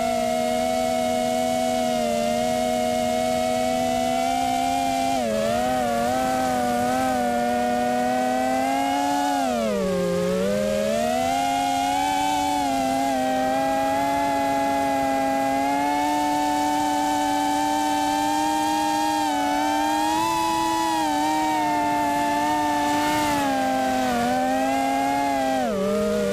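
Crusader GT2 FPV quadcopter's electric motors and propellers whining in flight, the pitch rising and falling with the throttle. The pitch drops sharply about ten seconds in and again near the end.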